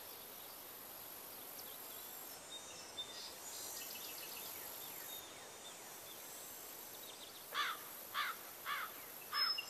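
Faint countryside ambience, a steady hiss with a few distant chirps. From about seven and a half seconds a bird calls repeatedly, short sweeping notes about two a second.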